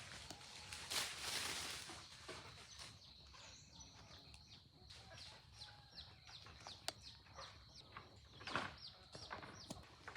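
Free-range chickens clucking and peeping. A rustling noise is heard in the first two seconds, then a long run of short, high, falling peeps, with a few sharp taps among them.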